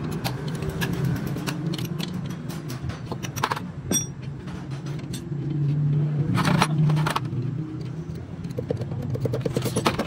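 Metal tools and engine parts clinking and scraping, with sharp clicks scattered through, over a steady low hum.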